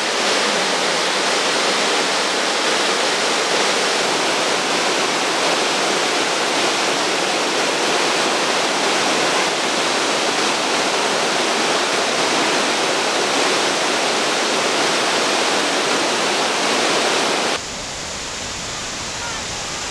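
Steady rushing hiss of the Krka River waterfalls, a dense roar of water tumbling over the travertine cascades. About 17 seconds in it drops suddenly and becomes duller and more distant, with more low rumble.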